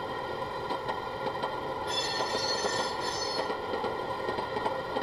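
Soundtraxx Tsunami sound car decoder playing its railcar generator sound through the model boxcar's small speaker: steady running, with a brief brighter hiss about two seconds in.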